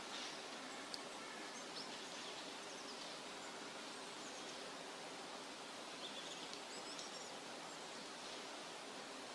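Quiet outdoor ambience: a steady hiss with faint, high bird chirps now and then.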